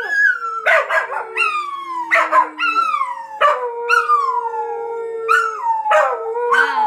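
Two Scottish Terriers howling together in overlapping long howls. The notes slide downward in pitch, one low howl is held for several seconds, and new howls break in about once a second.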